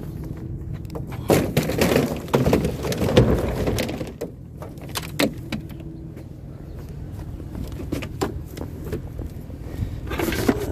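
Clatter and knocks of junk being handled and shifted in a curbside scrap pile: a dense burst lasting a few seconds about a second in, a few sharp knocks later and more clatter near the end, over the steady low rumble of an idling vehicle.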